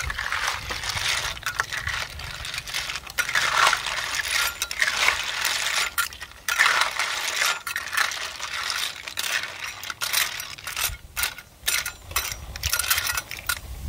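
Snail shells clattering and clinking against each other and against a steel wok as a metal spatula and spoon stir them, a dense, irregular run of clinks and scrapes.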